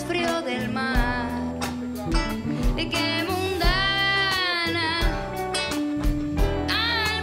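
Latin band music with a woman singing lead, holding long wavering notes about halfway through and near the end, over electric guitar, bass notes and an evenly spaced drum beat.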